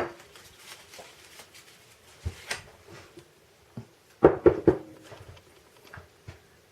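Scattered clicks and knocks of small parts being handled on a workbench, with a cluster of three or four sharp knocks about four and a half seconds in.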